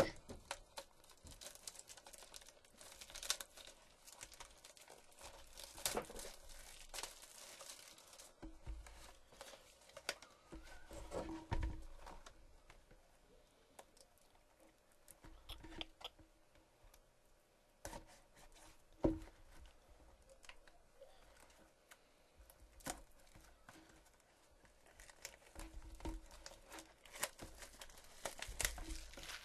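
Clear plastic shrink-wrap being crinkled and torn off a trading-card box, in irregular crackling handfuls with short pauses between.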